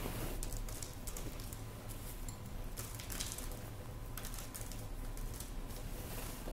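Sunflower seed kernels and rolled oats sprinkled by hand onto dough balls on parchment-lined baking trays: faint, scattered light ticks over a steady low hum, with a sharp knock right at the end.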